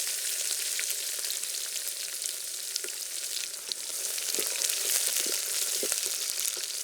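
Chopped onion frying in hot oil with panch phoron, dried red chillies, garlic and curry leaves: a steady sizzle with small crackles and pops, the tempering (tadka) for a dal.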